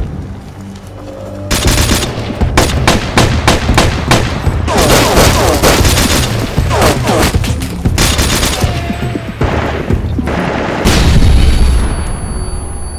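Gunfire in a firefight: rapid, overlapping shots in dense bursts starting about a second and a half in, then a heavy boom about eleven seconds in, the loudest moment, as a cloud of white smoke goes up.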